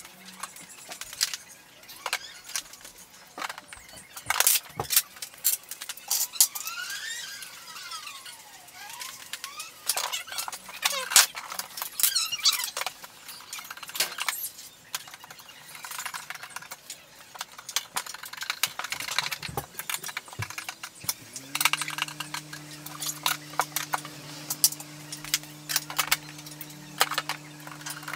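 Metal drawer runner rail being handled and screwed onto the side of a flat-pack drawer with a hand screwdriver: scattered clicks, taps and small metallic rattles, with a squeak that rises and falls in pitch several seconds in. A steady low hum comes in about three quarters of the way through.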